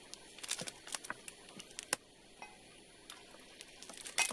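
Thin 500 ml PET plastic bottle crackling in scattered clicks and ticks as it is squeezed by hand to force water through a Sawyer Mini squeeze filter. The clicks bunch together about half a second in and again near the end, with one sharp click near the middle.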